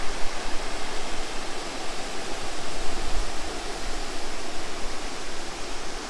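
A multi-level spillway waterfall rushing steadily: a loud, even wash of falling water with a low rumble underneath.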